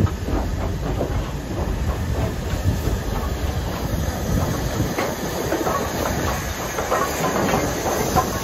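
Steam train hauled by BR Standard Class 2MT locomotive 78018 rolling its coaches along a station platform, wheels clicking over the rail joints. Steam hisses steadily and grows louder near the end.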